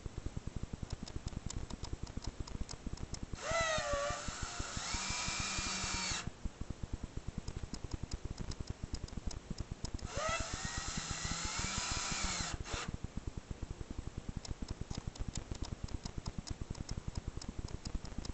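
Cordless drill driving wood screws to fix plastic mounting clasps to a wooden door frame. It runs twice, about three seconds each time, its whine rising as the motor spins up, then holding steady before it stops.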